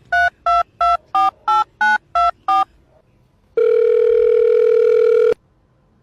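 Telephone keypad touch tones: eight quick two-note beeps, about three a second, as a number is dialled. About a second later comes a single long, steady tone lasting under two seconds.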